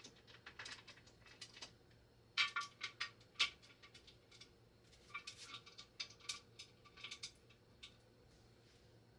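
Faint metallic clicks and scrapes in two clusters as the lid of an All-American 921 pressure canner is seated and its wing nuts are turned down by hand.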